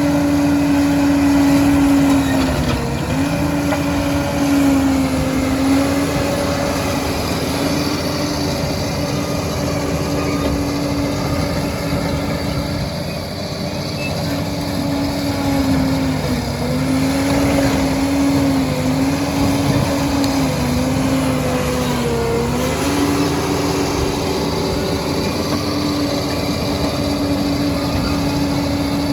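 Liebherr 746 crawler dozer's diesel engine running steadily under load, its pitch dipping briefly several times and recovering.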